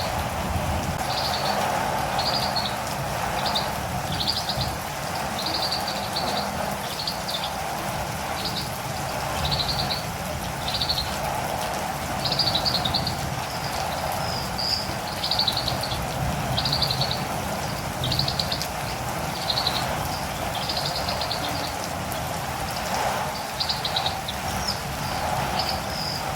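Catirumbava birds giving short, high chirps about once a second, over steady rain.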